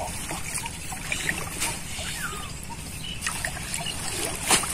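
Muddy water trickling and splashing as a bamboo-framed scoop net is lifted out of a shallow weedy pool and drains through the mesh, with scattered small splashes and one sharper splash near the end.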